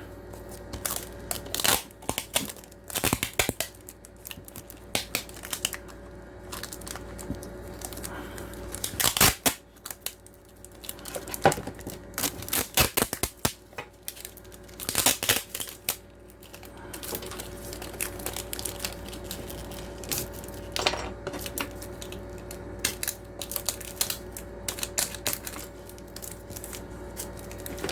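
Adhesive tape being pulled off the roll and wrapped around an aquarium air pump's casing: irregular crackling and ripping strips, with a faint steady hum underneath.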